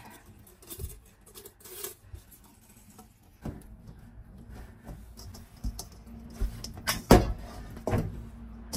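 Hands pinning the cavity of a raw whole duck shut with a wooden skewer in a stainless-steel bowl: scattered small rustles and clicks of skin and skewer, with a sharper knock about seven seconds in and another about a second later.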